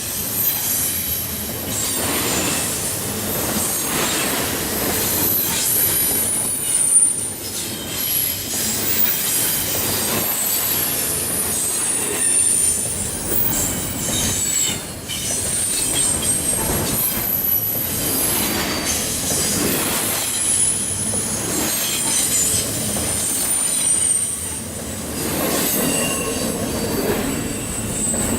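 Double-stack intermodal freight cars rolling past, wheels clattering on the rails, with high-pitched wheel squeal coming and going.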